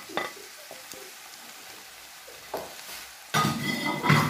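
Cooked red kidney beans being spooned into a frying pan of minced meat, with a steady sizzle and a spoon scraping against the pan. The scraping comes briefly a couple of times, then a louder stretch of scraping and sizzling runs for about a second near the end.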